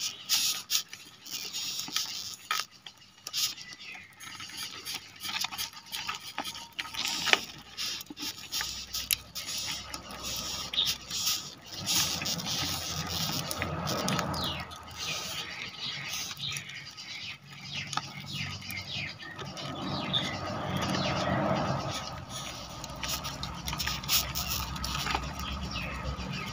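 Rhinoceros beetles clinging together in a clump held in the hand, giving irregular scratchy clicks and small squeaks. A low rumble builds in the background in the second half.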